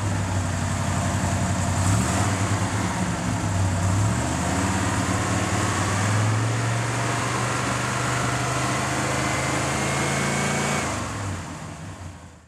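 A Chevrolet 454 big-block V8 with a Holley 750 carburetor running steadily at a low speed, fading out near the end.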